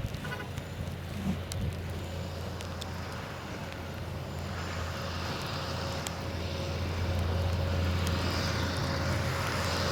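A car going by, its engine and tyre noise swelling from about halfway through, over a steady low hum.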